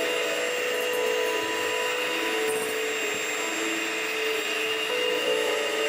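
Electric hand mixer running steadily at speed, its beaters whipping egg whites to a stiff foam in a glass bowl, with a constant motor whine. Soft piano music plays underneath.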